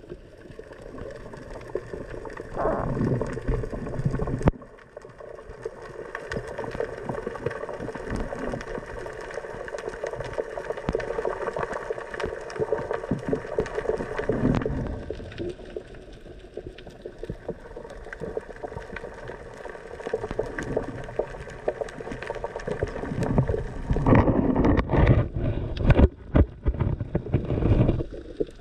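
Muffled underwater noise picked up through an action camera's housing during a freedive, with several heavier rushes of water moving against the camera.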